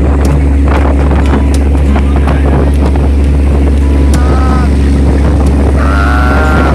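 Passenger ferry's engine running with a steady low drone, wind buffeting the microphone over it. About four seconds in, and again near the end, a man lets out drawn-out, wordless yells.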